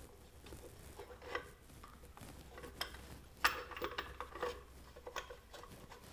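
Light metallic clinks and small knocks as parts are handled and fitted at the front of a Ford 302 small-block V8 on an engine stand. They come irregularly, with the sharpest ones clustered about three and a half seconds in.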